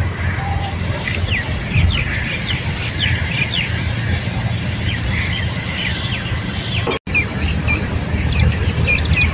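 Small birds chirping repeatedly in short, high, downward-sweeping calls over a steady low rumble. The sound cuts out for an instant about seven seconds in.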